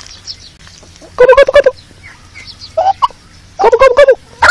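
White domestic turkey gobbling in three short, rapidly warbling bursts.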